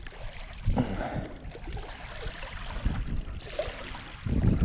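Small waves lapping and washing against a muddy reservoir shore, a steady wash with low rumbles of wind on the microphone, the strongest near the end.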